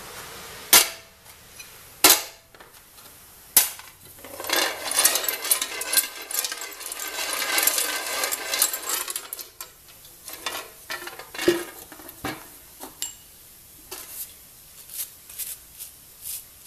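Small metal lathe chuck parts knocking and clinking in a metal pot of washing liquid: three sharp knocks in the first few seconds, then a rattling slosh for about five seconds as the pot is swirled, then lighter ticks and scratches as a part is scrubbed with a brush.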